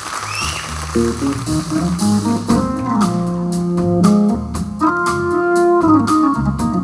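Live blues band playing: Hammond organ holding chords over bass guitar and drums, with evenly spaced drum and cymbal strikes coming in about two and a half seconds in.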